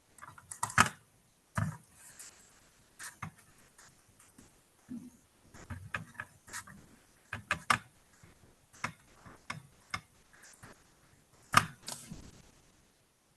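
Irregular light clicks and taps, about a dozen spread unevenly, with a sharper knock about a second in and another near the end: the sound of writing out working by hand.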